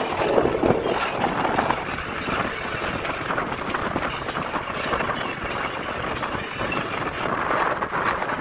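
A scooter in motion, heard from its handlebars: a steady rush of wind and road noise with a dense rattling clatter running through it.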